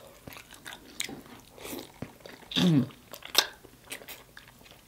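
Close-miked mouth sounds of a person eating sauce-covered rotisserie chicken off the bone: wet bites, chewing and lip smacks in scattered sharp clicks. A brief hummed sound falling in pitch comes a little past halfway.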